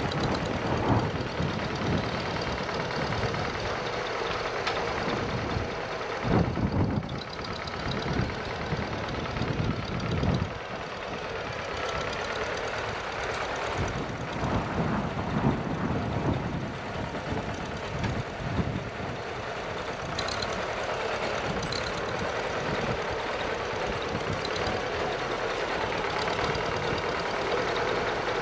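Farmall Super C tractor's four-cylinder engine running under varying load while it drags a rear blade through loose dirt, the low sound of the engine swelling and easing as it pulls.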